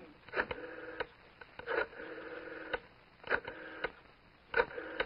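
Rotary telephone being dialed: four times the dial runs back with a steady whir, each run starting and ending with a click.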